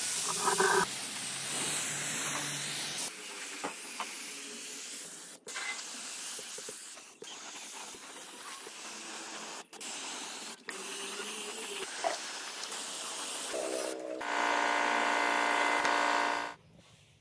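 Compressed-air spray gun hissing as it atomises paint, with a few brief breaks where the spray stops. Near the end a louder steady hum sounds for about two seconds, then cuts off.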